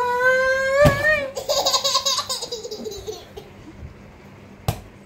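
A drawn-out, high-pitched vocal noise, then about a second and a half in a 12-month-old baby girl's burst of hysterical laughter that fades away, with a sharp click near the end.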